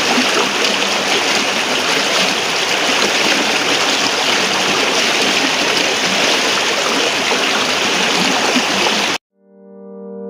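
Shallow stream rushing over stones, a steady loud rush of water that cuts off suddenly about nine seconds in. Soft piano music then fades in and swells near the end.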